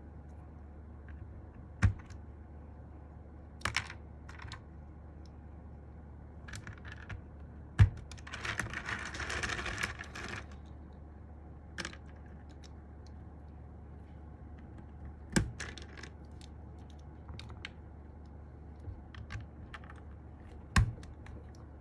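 Scattered clicks and clacks from a Sky87 mechanical keyboard and its parts being handled, with four heavier knocks spread through and a dense run of clatter lasting about two seconds near the middle.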